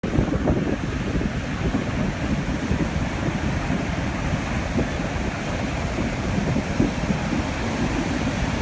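Wind buffeting the phone's microphone with a low, gusty rumble over the steady wash of ocean surf breaking and running up the sand.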